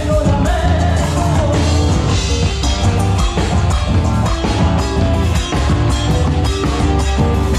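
Live band music: electric guitars, bass and a drum kit playing a rock-style arrangement of a folk tune, with a sung line fading out about a second in.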